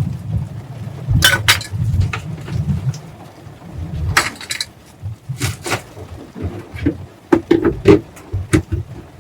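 Cooking pots, pans and utensils clinking and knocking as they are handled, in a series of sharp strikes in clusters, over a low rumble.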